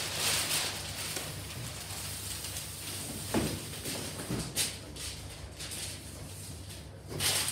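Quiet room noise with a few short rustling sounds: one just after the start, one past the middle and one near the end.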